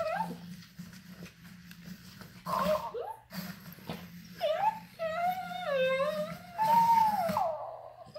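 Dog-like whimpers and whines: short calls that slide up and down in pitch, then a longer wavering whine near the end, over a low steady hum.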